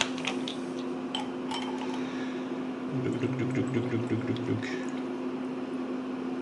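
Small metal clock parts clinking and liquid sloshing as they go into an ultrasonic cleaner, over a steady low hum; a buzzier low sound joins for about a second and a half in the middle.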